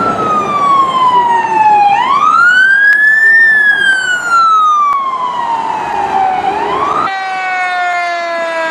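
Police car's siren on wail, sweeping up and down in pitch about every three and a half seconds over road and engine noise. About seven seconds in it cuts to a fire engine's lower, fuller siren on a slow falling wail.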